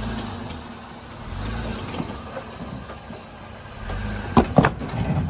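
An off-road 4x4's engine running at low revs, swelling three times as it crawls over a rock obstacle, with two sharp knocks near the end.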